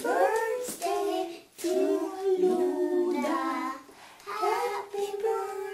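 Young children singing in high voices, in phrases with short breaks between them.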